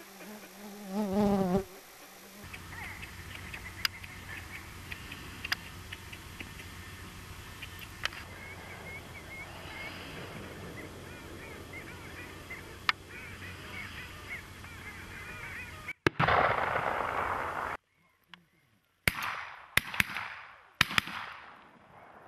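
Wild ducks calling on a lake: a wavering honking call in the first second or two, then many short calls from a flock over a steady hiss. Near the end the sound changes abruptly to a loud rush of noise, a short silence, then three sharp loud cracks.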